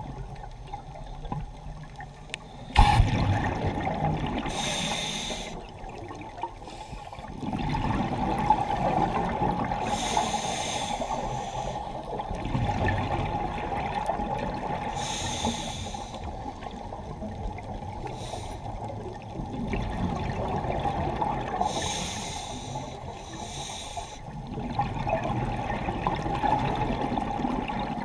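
Scuba diver breathing through a regulator underwater: short hissing inhalations alternate every few seconds with longer bubbling exhalations. A sharp knock sounds about three seconds in.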